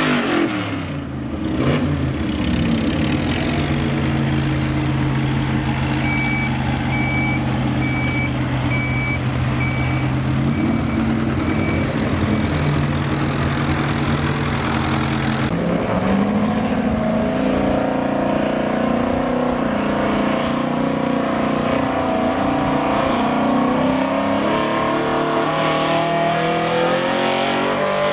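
Gasoline pickup truck engines at a truck pull. One engine winds down from full throttle at the start and settles into a steady idle, with repeated short electronic beeps for several seconds. After about halfway, another truck's engine runs under load while pulling the sled, its pitch climbing steadily.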